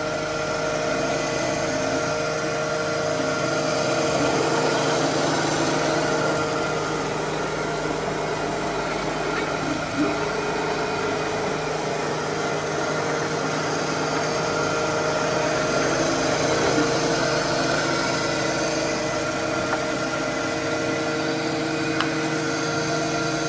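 Chevalier FSG-1224 AD surface grinder running: a steady machine hum of several held tones that swells and eases a little, with a couple of faint clicks.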